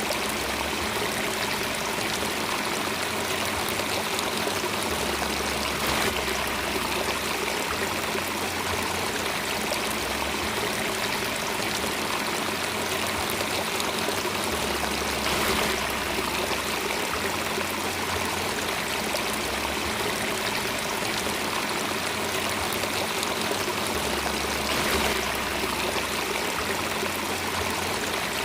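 Running water of a stream flowing steadily, an even rushing and trickling with slight brief swells about every nine or ten seconds.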